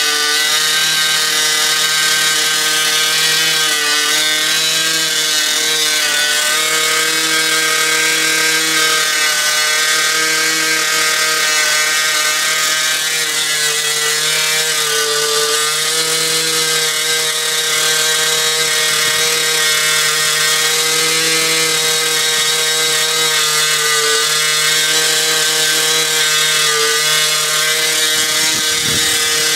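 Small glow-fuel nitro engine of an RC model airplane running flat out on a break-in test, a loud, steady buzz whose pitch wavers slightly.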